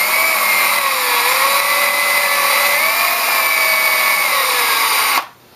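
Electric drill running with a steady motor whine, its pitch rising and falling a little, as a needle-pointed piercing bit is pushed through a stack of taped wood veneer. The motor cuts off suddenly about five seconds in.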